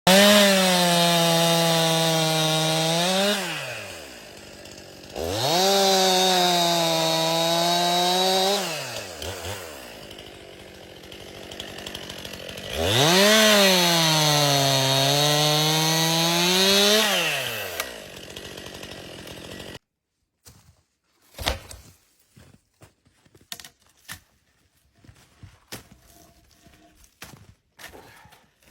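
Stihl MS 261 C chainsaw revved to full throttle three times, a few seconds each, falling back to idle in between. About two-thirds of the way through, the engine sound cuts off suddenly, leaving only scattered light knocks and clicks.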